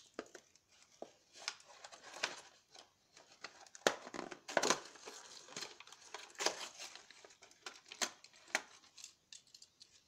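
A toy train's retail packaging being opened by hand: irregular crinkling and rustling broken by many short, scattered clicks and taps.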